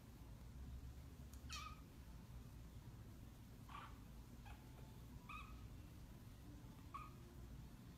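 Kittens giving a few faint, short, high-pitched mews, each dropping in pitch, over a low steady hum.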